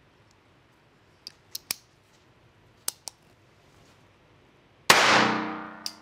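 Bond Arms Rawhide .22 LR pocket pistol: a few small metallic clicks as it is handled and made ready, then one shot about five seconds in that rings on and fades in the reverberant indoor range. A last click comes just before the end.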